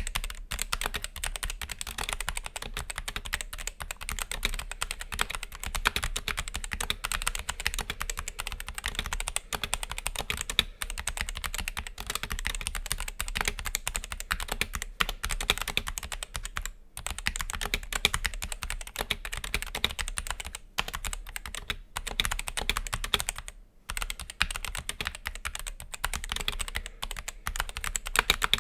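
Continuous fast typing on a Dark Project KD-2 60% mechanical keyboard with Gateron optical Black linear switches and lubed Cherry-style stabilizers: a dense stream of key clacks, broken by a few brief pauses.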